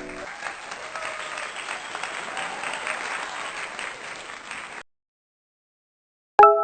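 Crowd applause, clapping steadily for nearly five seconds and cutting off suddenly. Near the end a single sharp pitched strike rings briefly.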